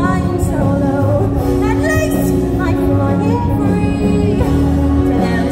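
Live stage-musical orchestra and singers in full climax, over a long held low note that drops away near the end.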